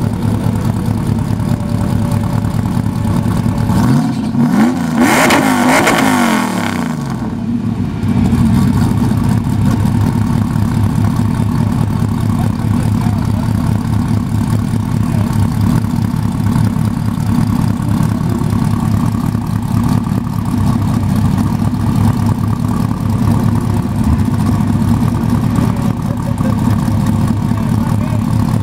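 A Stadium Super Truck's Chevrolet LS7 V8 idling with a steady, pulsing beat. About four seconds in, a louder surge of engine sound lasts about two seconds, gliding up and down in pitch, then the idle carries on.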